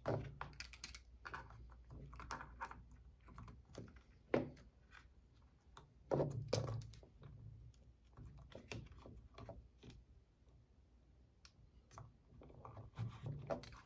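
Faint, irregular clicks and taps of hard plastic and metal: RC truck suspension and drivetrain parts and a hex driver being handled during reassembly. There is a sharper knock about four seconds in and a cluster of taps around six to seven seconds.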